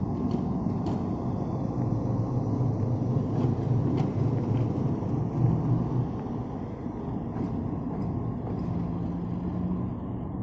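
General Electric diesel-electric locomotive running past at slow speed, its engine a steady low drone that is loudest in the first six seconds and eases off after, with a few sharp clicks from the wheels on the track.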